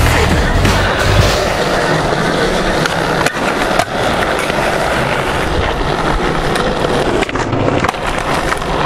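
Skateboard wheels rolling over smooth concrete in a steady rumble, broken by a few sharp clacks of the board.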